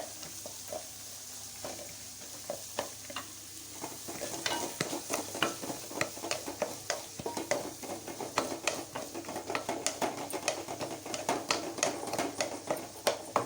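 Chopped carrot, beans, capsicum and cabbage sizzling in hot oil in a kadai while being stir-fried. About four seconds in, a rapid run of spatula scrapes and clicks against the pan begins and grows louder than the sizzle.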